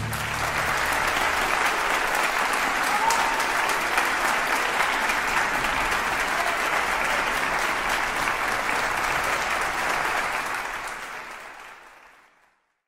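Applause: many hands clapping steadily, fading out over the last two seconds or so into silence.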